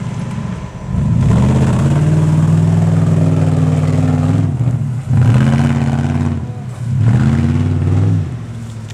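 Off-road vehicle engine revving hard in three long bursts over a running idle, the pitch climbing at the start of each burst and easing back near the end.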